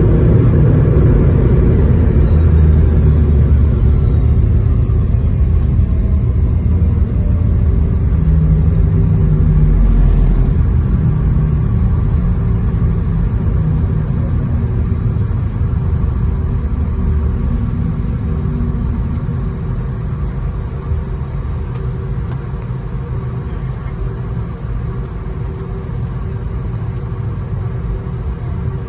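Airliner landing: a deep steady rumble that slowly fades, with a faint engine whine falling in pitch in the first few seconds.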